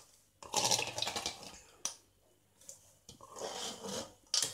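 Metal spoon stirring and scraping cooked rice in a stainless steel bowl: two spells of rustling scraping, with a couple of sharp clicks of the spoon against the bowl.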